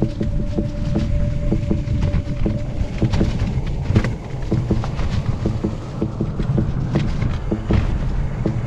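Mountain bike running down a rough trail: heavy rumble and wind on the camera's microphone, with the bike rattling and knocking about three to four times a second.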